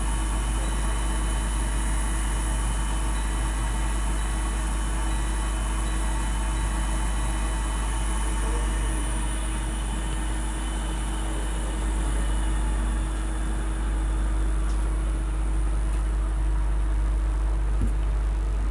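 Electric fan running: a steady deep rumble with a faint, even hum over it.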